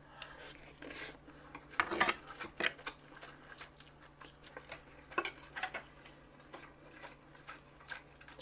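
Metal cutlery clinking and scraping against a dish in scattered, irregular strokes while scooping up rice, the loudest cluster about two seconds in.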